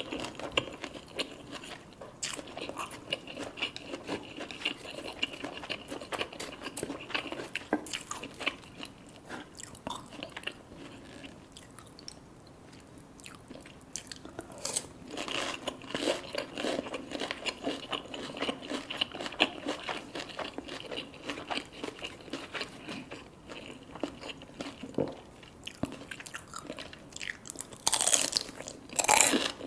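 Close-up eating sounds: crisp deep-fried food being bitten and chewed, with irregular crunching and wet chewing. There is a brief lull partway through and a louder burst of crunching near the end.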